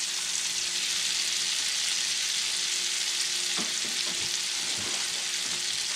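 Black drum fillets frying in melted butter and minced garlic in a hot pan: a steady, even sizzle.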